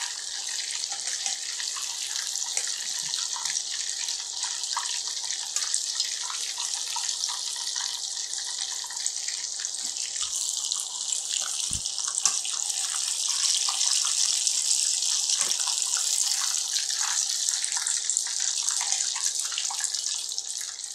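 Battered cod pieces deep-frying in hot oil in a stainless wok: a steady sizzling hiss with scattered crackles and pops as the golden, fully fried pieces are lifted out with a wire strainer. There is a sharper knock about twelve seconds in.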